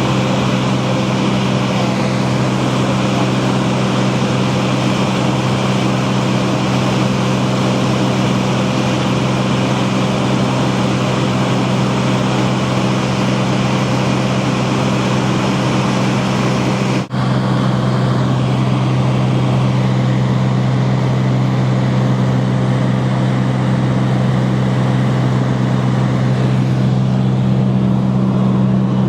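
Cessna 210 Centurion's piston engine and propeller running steadily, a loud low drone, with a momentary dropout a little past halfway.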